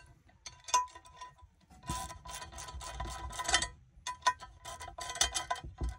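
Quarter-inch drive ratchet clicking as it snugs down a quarter-20 stainless bolt into a nylon lock nut. The clicks come in two quick runs, about two seconds in and again about four seconds in.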